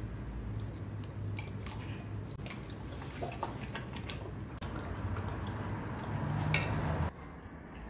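An American bully dog chewing and lip-smacking as it eats, with a run of short wet clicks and a few light clinks of a fork on a ceramic plate; the sound cuts off suddenly about seven seconds in.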